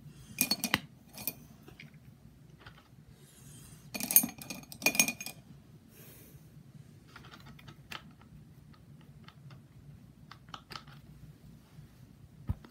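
Rapid clicking and clinking of makeup tools being handled, hard plastic and metal tapping together: two short flurries, about half a second and about four seconds in, then scattered light ticks and one sharp click near the end.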